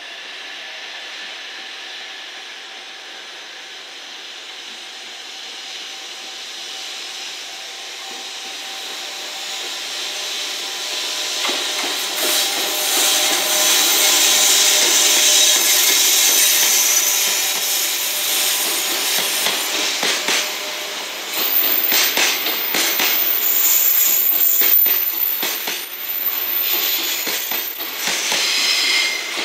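JR Freight EF210 electric locomotive hauling a container freight train passes close by: its running noise with a steady whine grows louder as it approaches and is loudest about halfway through. After that the container wagons rumble past, their wheels clattering over rail joints in a run of sharp clicks.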